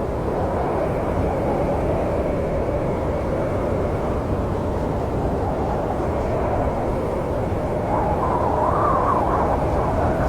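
Snowstorm wind blowing steadily: a low rushing noise with a moaning whistle that swells and rises in pitch about eight seconds in.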